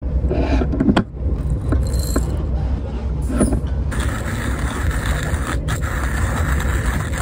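Timemore Chestnut Nano hand coffee grinder: a few clicks and knocks as its parts are handled and the crank is fitted, then from about four seconds in the steady grinding of coffee beans as the crank turns, over the low rumble of a moving train.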